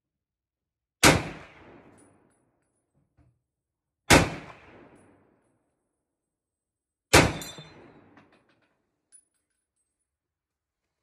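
Three shots from an M1 Garand rifle firing .30-06 M2 ball-spec handloads, about three seconds apart, each a sharp report with a short decaying echo. The third shot is followed by a brief high metallic ring, typical of the Garand's en-bloc clip pinging out as the last round of the string is fired.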